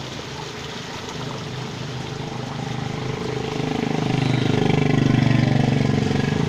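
A motor vehicle's engine passing close by, growing louder from about halfway and loudest near the end, over the steady rush of a small stream.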